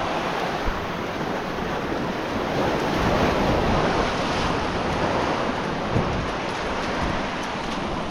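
Sea surf washing against shoreline rocks, with wind buffeting the microphone. The wash swells up about three seconds in, and two brief bumps stand out, one near the start and one near the end.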